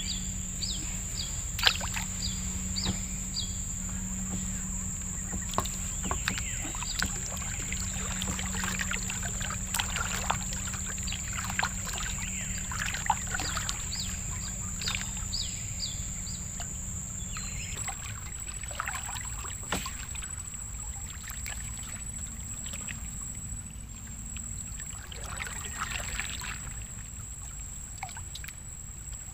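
Wooden canoe paddle dipping and stroking through calm river water, with soft irregular splashes and drips. A steady high-pitched whine runs underneath, and runs of short falling chirps come near the start and about halfway through.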